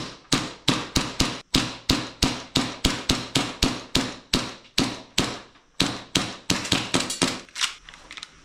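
G&G GPM1911 gas blowback airsoft pistol firing a rapid string of shots, about three to four a second, each a sharp crack with the slide cycling back, the string stopping shortly before the end.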